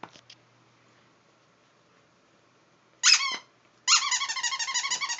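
Squeaker in a small plush squirrel dog toy squeaked once sharply about three seconds in, then squeaked in a fast, even run of about eight squeaks a second for a second and a half as a puppy bites it.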